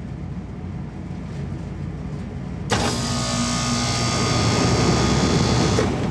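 Walk-in freezer condensing unit running during a pump-down, pulling the suction pressure down toward the low-pressure switch's cut-out. About three seconds in, a loud rushing noise cuts in suddenly and stops just as abruptly about three seconds later.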